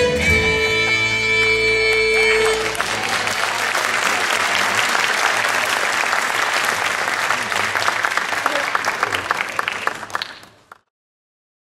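Irish dance music ends on a held final note, then an audience applauds for several seconds. The sound cuts off suddenly near the end.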